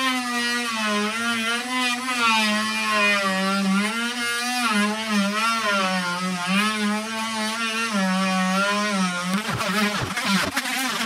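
Dremel Multi-Max oscillating multi-tool fitted with an aggressive blade, plunge-cutting into 3/4-inch plywood. Its motor whine keeps dipping in pitch and recovering as the blade labours under load. About nine seconds in, the steady tone breaks up into a rougher sound.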